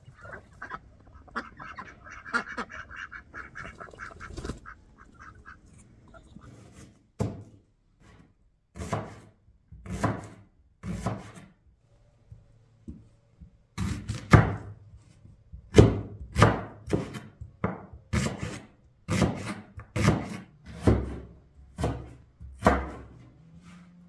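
Fowl calling in quick pulses for the first few seconds. This is followed by a long series of heavy knocks, about a second apart at first and then coming faster, each one with a short ring after it.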